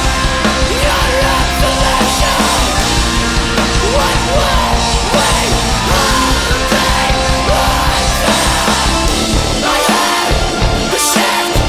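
Post-hardcore band recording playing loud and dense, heavy punk-style rock. The low end drops away near the end.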